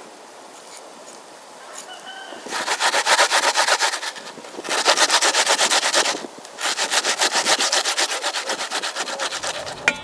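Rapid rhythmic scraping or rubbing at about ten strokes a second, in three bursts separated by short pauses.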